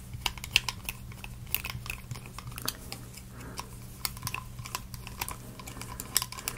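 Small screwdriver turning tiny screws into a plywood plate to fasten a metal music box movement, giving irregular light clicks and ticks as the tip seats and turns in the screw heads.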